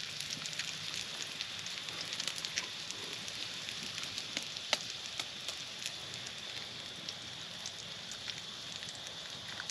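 Fatty bacon frying in a skillet over a wood campfire: a steady sizzle with scattered crackles and pops, one sharper pop about five seconds in.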